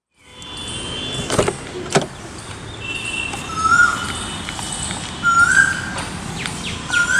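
Birds calling outdoors: one repeats a short whistled call about every two seconds over other higher chirps. Two sharp knocks sound in the first two seconds.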